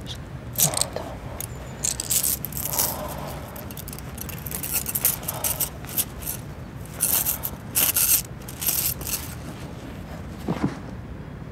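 Clothes rustling and shuffling as hands rummage through a packed suitcase, in irregular bursts.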